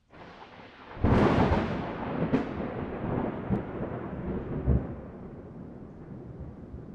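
Thunder: a loud crack about a second in, a second sharper crack soon after, then a long rolling rumble that slowly fades.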